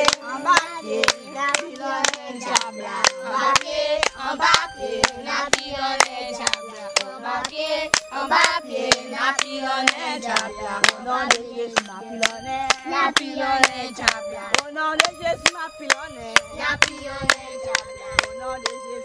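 Voices singing a hymn together, with hands clapping in time, about two claps a second.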